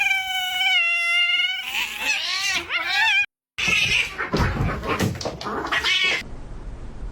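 Cats caterwauling, the aggressive yowling of cats squaring up to fight. A long drawn-out yowl gives way to wavering yowls that rise and fall, and the sound breaks off abruptly a little after three seconds. A harsher, noisier stretch with more yowls follows, then dies down near the end.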